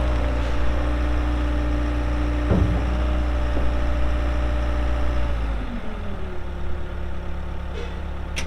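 Bobcat S66 skid steer's diesel engine running steadily at high throttle. About five and a half seconds in, it is throttled back and the pitch falls to a low idle. There is a single knock a little after two seconds.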